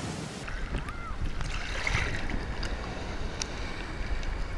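Sea water sloshing and lapping around a camera held at the surface, over a low rumble of waves, after a brief hiss of surf and wind at the very start.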